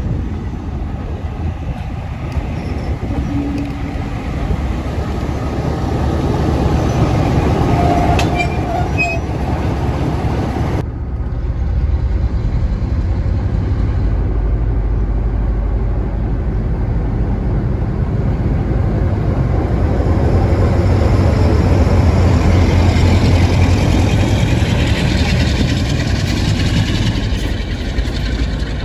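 Rumble of a moving heritage railway coach, changing abruptly about eleven seconds in to a British Rail Class 47 diesel locomotive passing and hauling its coaches away. Its Sulzer V12 diesel makes a low drone that is loudest a little after the middle, followed by the coaches rolling by.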